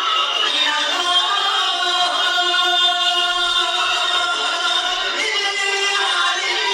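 Several voices singing together in long held notes.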